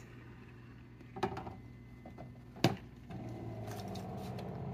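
A borosilicate glass carafe is slid onto an AquaTru Carafe reverse osmosis purifier, with a soft knock and then a sharp click as it seats. About three seconds in, the purifier's pump starts with a steady hum, beginning a filtration cycle.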